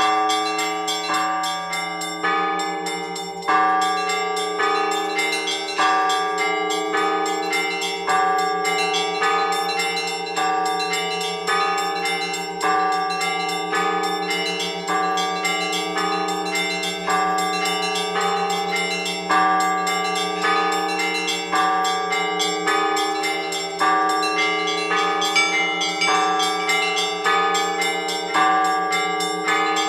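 Orthodox church bells rung together in a repeating weekday peal: smaller bells struck in a steady pattern about once a second over the lingering low hum of a larger bell.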